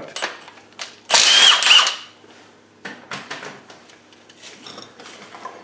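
Impact wrench on a long extension bar, run in one burst of about a second, a little after the start, on an engine-mount bolt; the long bar saps its torque. A few faint clicks and clinks of tools follow.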